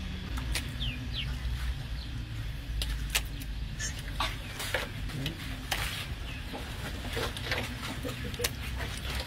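Chickens clucking, a few short falling calls, over scattered clicks and a steady low rumble.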